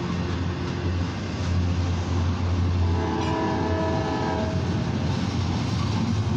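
Double-stack intermodal freight train running past on the rails with a steady low rumble. About three seconds in, a locomotive horn sounds one steady chord for about a second and a half.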